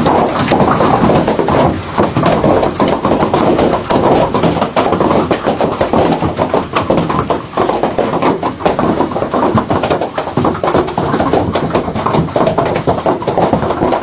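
Hailstones pelting down hard, a dense, continuous clatter of countless rapid impacts over the rush of the storm.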